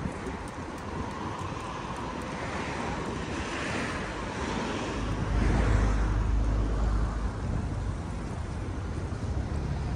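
Outdoor street ambience beside a city road: a steady wash of passing traffic and wind noise, with a louder low rumble swelling about five seconds in and easing off a couple of seconds later.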